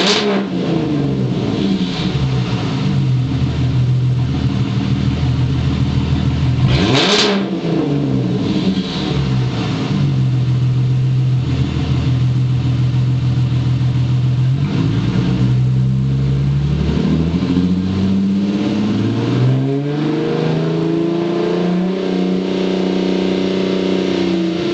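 2008 Ford Mustang's 4.0-litre V6 running through an exhaust with the mufflers removed, revved while standing. A sharp blip at the start and another about seven seconds in each fall straight back; the revs then hold steady, ease down around the middle, and climb to a higher steady hold near the end.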